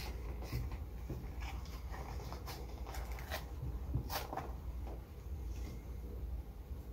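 Small paperboard milk carton being pried open at its spout: scattered soft cardboard creaks and taps, the loudest about four seconds in.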